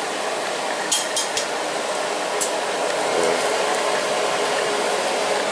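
Lumpia shanghai (Filipino egg rolls) frying in a pan of hot oil, a steady sizzle. Metal tongs click against the cookware three times in quick succession about a second in, and once more a second later.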